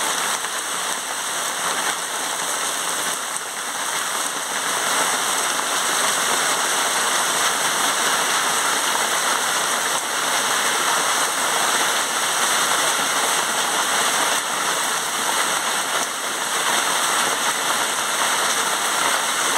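Heavy rain pouring down onto open water, a dense, even hiss that swells a little about four seconds in.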